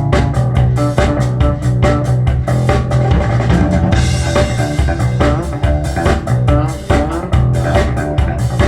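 A recorded band track played over Bowers & Wilkins 803 D4 floorstanding loudspeakers driven by a Marantz MODEL 10 amplifier: bass guitar, guitar and drum kit, with a strong bass line and a steady beat.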